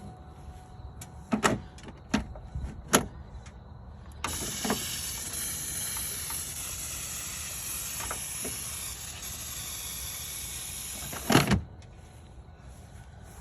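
Aerosol can of starting fluid spraying in one long steady hiss of about seven seconds, the usual treatment for a truck engine that won't start. A few sharp knocks come before the spray and one loud knock just as it stops.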